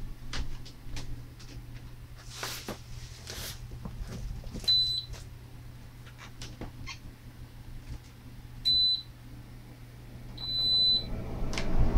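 Three short high-pitched electronic beeps, about four seconds apart at first, the last one longer. Under them run a steady low hum and soft scattered rustles and light knocks.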